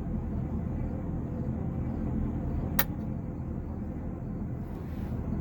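Engine running steadily with a low rumble, and a single sharp click a little before three seconds in.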